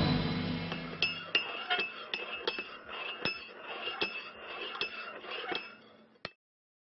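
Music fading out, then a run of light, ringing clinks, about two or three a second, that stops near the end.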